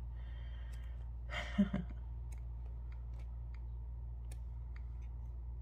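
Paper pages of a paperback coloring book being handled and turned: a soft rustle about a second and a half in, then scattered light clicks. A steady low hum runs underneath, and a brief soft vocal sound comes with the page turn.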